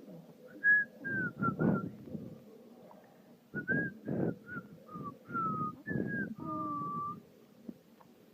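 A man whistling two short runs of notes, a pause between them, with the second run ending on a longer held note.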